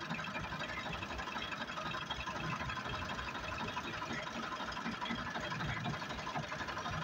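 Ford 4600 tractor's three-cylinder engine idling steadily, with an even, fast rhythmic pulse.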